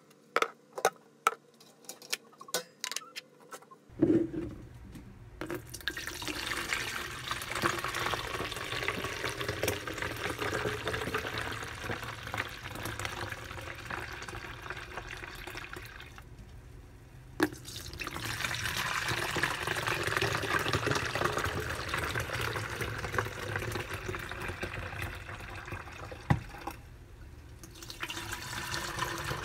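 A few sharp clicks, then liquid poured in a steady stream into plastic water jugs, with two short pauses between pours. The liquid is freshly boiled barley tea.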